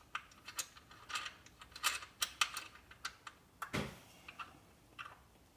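Light, irregular metallic clicks and scrapes of a bobbin adapter being screwed by hand into the bobbin mount on a motorcycle swing arm, with one duller knock a little before the four-second mark.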